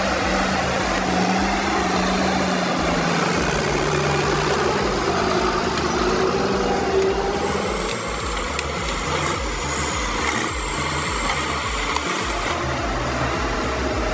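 Diesel engine of a John Deere 540 skidder running under load, a steady machine noise. There is a low hum in the first few seconds, and a thin high whine from about halfway to near the end.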